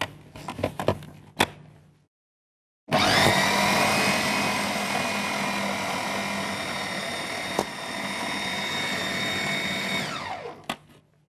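A few clicks and knocks, then an electric food processor's motor spins up and runs steadily for about seven seconds with a high whine, mincing raw chicken breast with onion, pepper and spices, before it winds down with a falling whine near the end.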